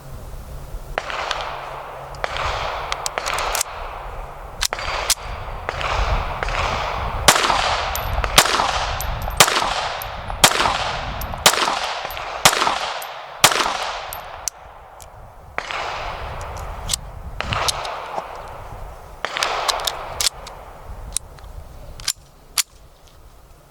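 Pistol gunfire in .32 ACP from a Langenhan, a Browning 1900 clone, mixed with other guns. It is a long run of sharp shots, irregular and often less than a second apart, each with a long echoing tail. The shots thin out near the end. There are far more shots than one seven-round magazine, so other guns are firing too.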